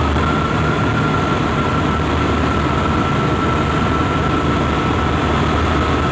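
Steady in-flight drone of a piston aircraft engine and propeller: an even low rumble with a constant thin whine above it.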